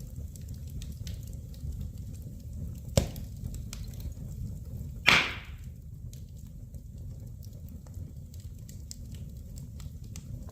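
Fire burning in a fireplace: a steady low rumble with scattered faint crackles, a sharp pop about three seconds in, and a louder pop trailing into a brief hiss about two seconds later.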